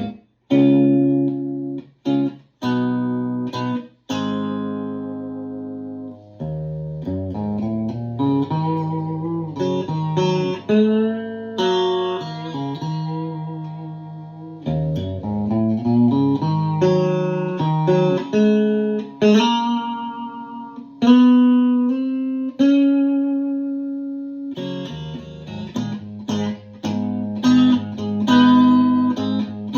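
Open-chamber Telecaster electric guitar with a mahogany and maple body, playing a chord progression in the key of A. It opens with short chords that are cut off abruptly, then moves into ringing chords with moving bass notes and single-note fills.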